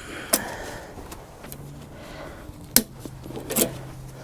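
Cable ties being snipped off with cutters: three sharp clicks, one about a third of a second in and two near the end, half a second apart.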